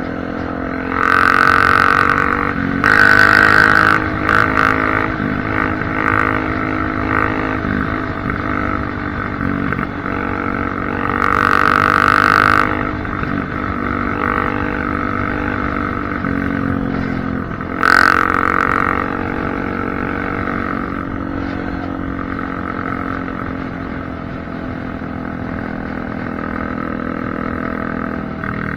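Honda CRF250F dirt bike's single-cylinder four-stroke engine running with its exhaust baffle removed, raw and loud. Steady running is broken by four louder bursts of throttle, the longest about eleven seconds in and a short one near eighteen seconds, with the pitch shifting around them.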